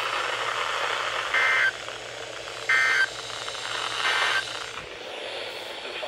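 Weather radios sounding the three short digital data bursts of an Emergency Alert System end-of-message signal, about a second apart, over a steady hiss of radio static.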